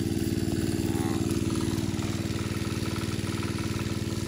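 Small engine driving a water pump, running steadily at a constant speed.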